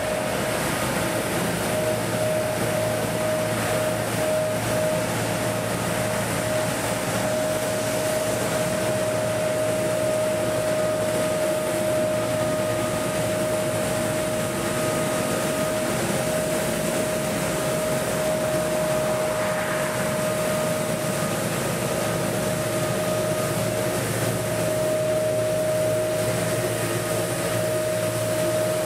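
Tecnosystem TS 6000 road sweeper and an asphalt milling machine running together: steady heavy machinery noise with a constant high whine over it.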